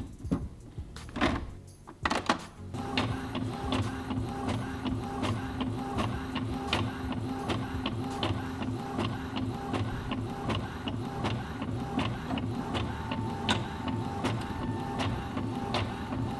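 Epson ink-tank all-in-one inkjet printer making a copy. A few knocks come in the first two seconds as the scanner lid is closed and the copy is started. Then the machine runs steadily with quick, regular clicking as the print head and paper feed work the sheet through.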